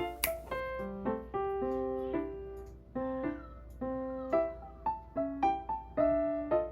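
Background music: a light piano or electric-piano melody of short, decaying notes.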